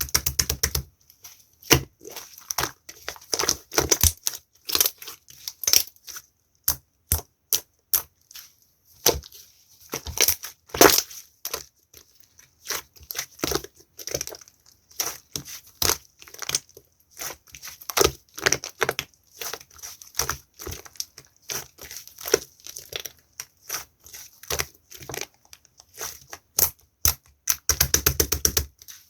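Slime being squeezed, pressed and stretched by hand, giving irregular sharp pops and crackles, with quick rapid clusters of them near the start and near the end.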